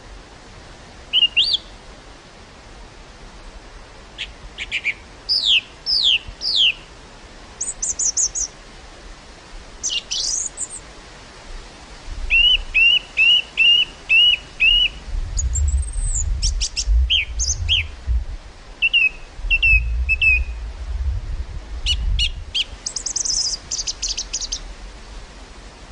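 Several small birds chirping and calling in short whistled phrases, one of them repeating a quick string of six notes about halfway through. From about halfway, gusts of wind blow against the microphone as a low rumble.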